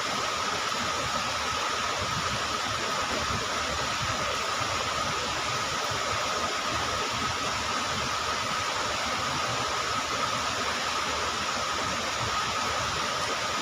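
Steady rush of water, from heavy rain or a swollen stream, with a thin steady whine running through it.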